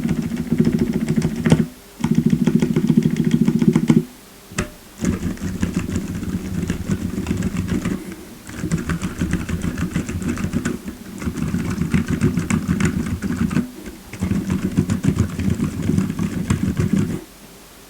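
Fast typing on a tape-modded Redragon K617R keyboard with stock Gazzew Bobagum silent linear switches and cherry-profile keycaps: a rapid run of soft, deep, muffled keystrokes. The typing comes in bursts with brief pauses about 2, 4½, 8½ and 14 seconds in, and stops shortly before the end.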